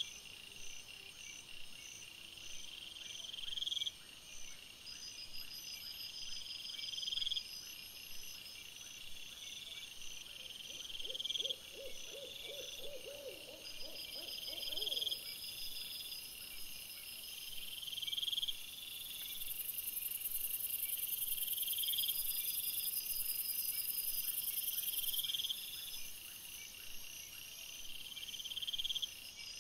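Night insects chirping: a buzzing trill that swells and cuts off about every three and a half seconds over finer high chirping, with a lower, rapidly pulsing call for a few seconds around the middle.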